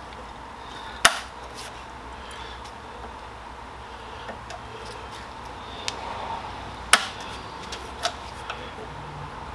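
A few sharp knocks over a steady low background: two loud ones about six seconds apart, the first about a second in, with a few lighter taps between and after.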